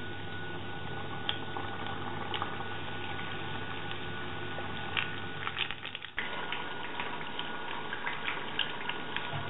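Tempura-battered skewers frying in hot olive oil: a steady sizzle and bubbling with many small crackles and pops, breaking off briefly about six seconds in and then resuming.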